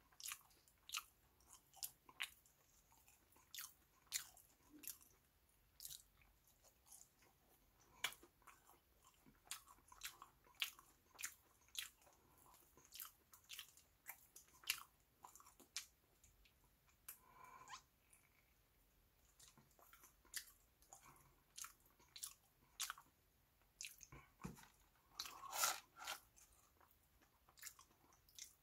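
Close-miked chewing of French fries: soft crunches and wet mouth clicks, a few each second. About 25 seconds in, a louder rustle of the paper fry box being handled.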